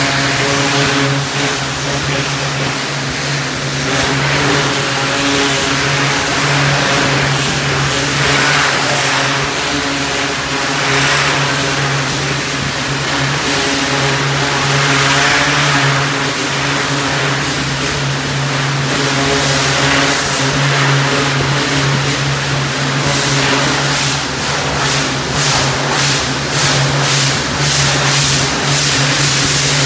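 Pressure washer running steadily with a constant engine hum, and the hiss of its high-pressure spray striking the metal mesh flooring and pen rails, swelling and fading as the wand sweeps and flickering rapidly near the end.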